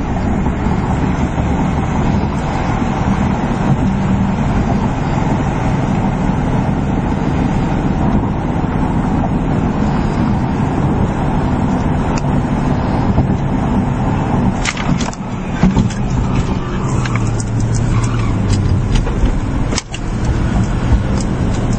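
Steady road and engine noise heard from inside the cabin of a 2007 Mercedes S65 AMG twin-turbo V12 cruising at about 50 mph, with a few brief knocks about two-thirds of the way through.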